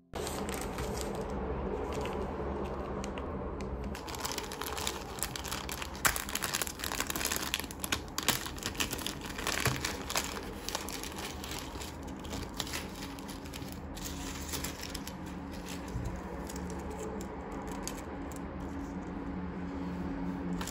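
Clear plastic packaging bags crinkling and rustling as hands handle them, with short clicks and taps throughout. It is busiest in the middle and quieter near the end, over a steady low hum.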